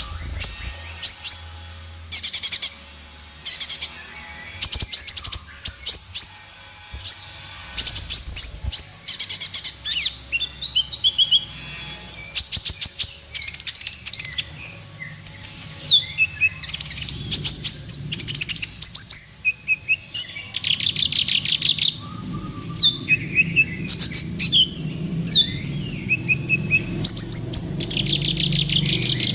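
Purple-throated sunbird (kolibri ninja) singing: short bursts of fast, high-pitched trills repeated every second or two, mixed with shorter sliding notes. A low hum runs underneath in the second half.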